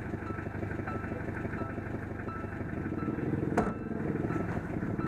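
Vehicle engine running steadily, heard from inside the cab, with one sharp knock about three and a half seconds in.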